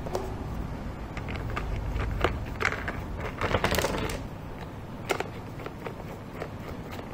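Hard plastic parts of a toy construction loader clicking, knocking and rattling as they are handled and pushed together, with a short scraping rattle a little past halfway and a sharp click about five seconds in.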